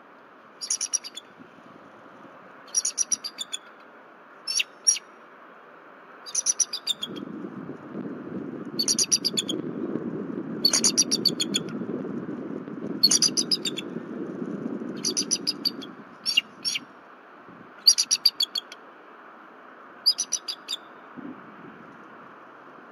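Bald eagle calling in its high-pitched staccato chatter: about eleven short bursts of rapid piping notes, one every couple of seconds. A low rushing noise runs underneath through the middle of the stretch.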